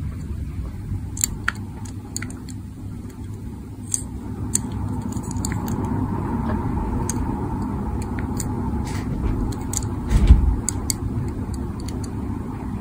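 Small scattered clicks and taps of a die-cast toy car being turned over in the fingers, over a steady low rumble, with one louder dull thump about ten seconds in.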